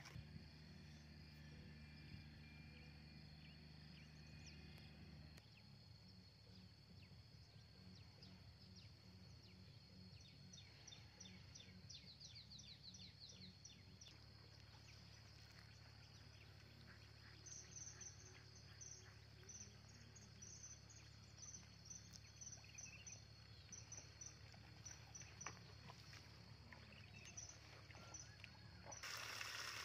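Faint rural ambience, close to silence: a steady high-pitched insect drone, with rows of short high chirps from about ten seconds in and a low hum underneath. Just before the end a louder hiss cuts in.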